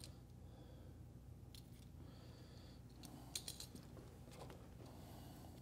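Near silence: faint clicks and light clatter of a screwdriver and a plastic power plug being handled as its wires are taken back out, over a low steady room hum.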